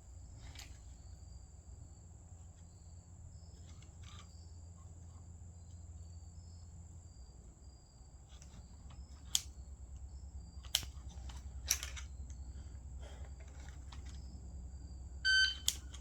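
A few sharp, quiet clicks and knocks of an AR-style rifle being handled, over a low steady hum. Near the end, a shot timer gives a short beep.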